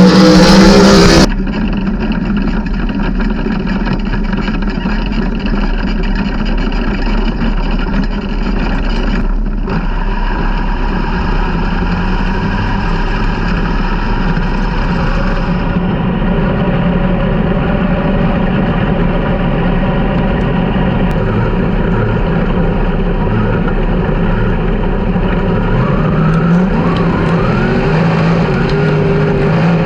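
Several 360 sprint car engines running during a race on a dirt oval, with rising pitch sweeps as they accelerate near the end. A short burst of music cuts off about a second in.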